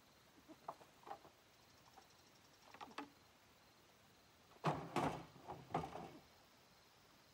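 A few scattered light knocks and rustles, then a louder clatter of several knocks about five seconds in, lasting a little over a second.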